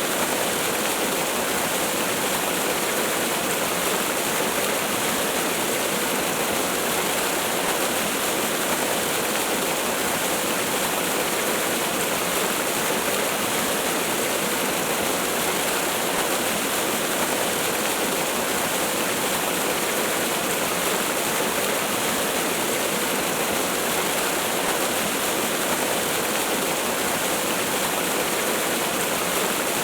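Waterfall: water falling and rushing in a steady, unchanging hiss, with little deep rumble.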